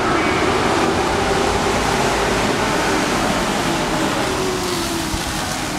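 Pack of race trucks (pickup-bodied stock cars) running at speed on a paved oval, their engines making a loud, steady din. One engine note drops in pitch near the end as the trucks go past.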